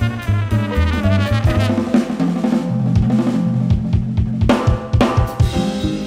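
Jazz quartet playing: a trumpet line over double bass and drum kit gives way, about two seconds in, to busy drum-kit playing, with snare, bass drum and cymbals over the double bass.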